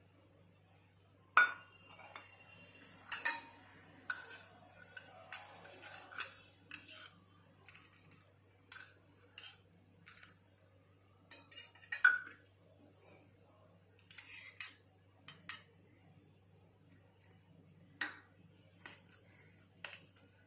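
Metal spoon clinking and scraping against stainless steel bowls while butter, garlic and chilli flakes are scooped out and mixed together. The clinks come irregularly, the loudest a little over three seconds in.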